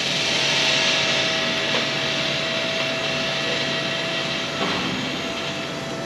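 Upright snorkel lift's hydraulic drive running as the basket is raised, a steady whine over a hiss; the whine breaks off briefly about three-quarters of the way through, then resumes.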